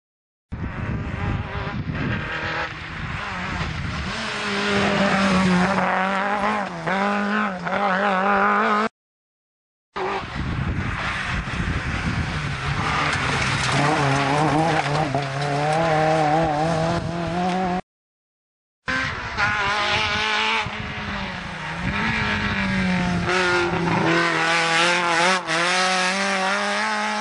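Rally cars accelerating hard on a tarmac stage, engines revving and changing pitch repeatedly as they shift gears and brake for corners. Three separate passes, each cut off abruptly by about a second of silence.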